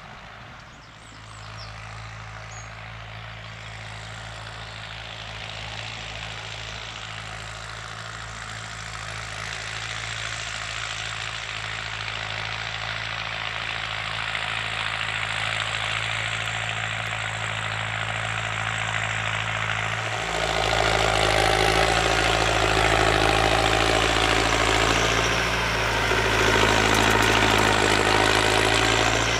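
Massey Ferguson 5455 tractor engine running steadily while it pulls a twin-rotor hay rake through cut grass. The sound grows gradually louder as the tractor comes closer, then jumps to a closer, louder engine sound about 20 seconds in.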